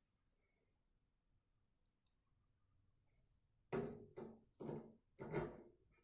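A few short clicks and knocks of screws being started by hand into motherboard standoffs in a steel PC case, coming about three and a half seconds in after a quiet stretch.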